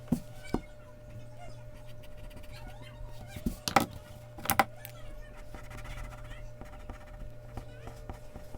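Mechanical pencil on Bristol paper: a couple of light clicks, then two short scratching strokes about a second apart, over a steady low hum.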